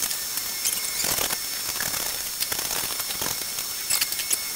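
Acetylene torch flame hissing steadily, with scattered small crackles, while heating a sword blade for hardening.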